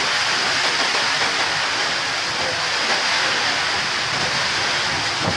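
Steady rushing noise of a creek in flood, swollen over its banks by storm rain, mixed with falling rain.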